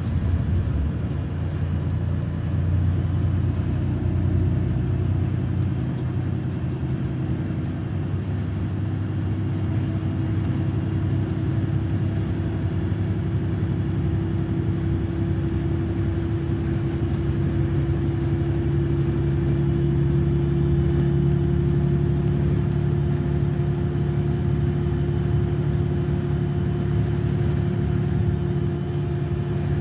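MAN Lion's City city bus's rear-mounted diesel engine idling while the bus stands still: a steady low hum, joined about a third of the way in by a steady humming tone that holds to the end.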